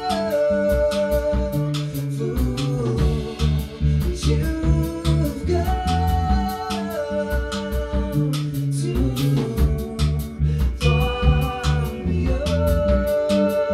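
A rock band playing live: electric guitar, bass guitar and drum kit, with cymbal and hi-hat hits keeping a steady beat under held melody notes.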